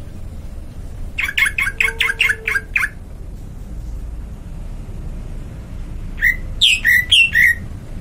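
A bird calling: a quick run of about ten short chirps, then a few seconds later four or five louder calls, with a low steady rumble underneath.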